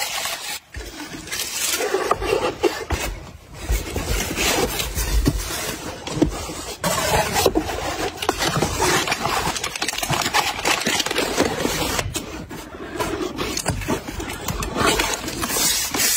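Paper and cardboard handling: tissue paper rustling and crinkling under the hands, and a corrugated cardboard mailer box scraping and being rubbed, in a dense run of small crackles and scratches.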